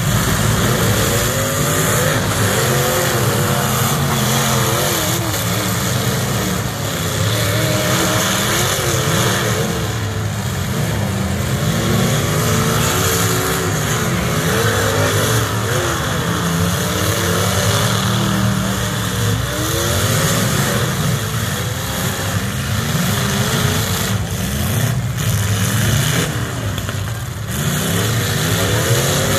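Several demolition derby stock car engines revving hard, rising and falling over and over and overlapping each other, under a constant roar.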